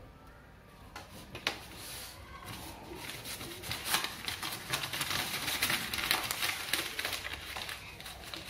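Paper rustling and crinkling as a sheet is handled on a desk, a run of short crackles that starts about a second in and dies down near the end.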